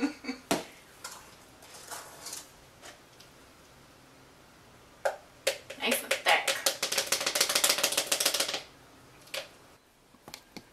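A utensil clicking rapidly against a container as food coloring is stirred into cake batter. One run fades out just after the start, a second lasts about three seconds from around six seconds in, and there are a few single taps between.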